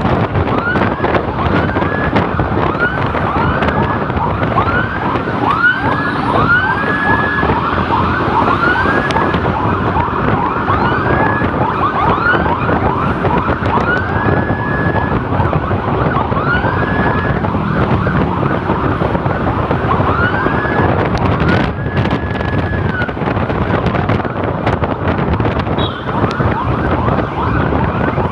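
Electronic emergency siren sounding in quick repeated rising sweeps, with a longer held tone now and then, over wind and road noise.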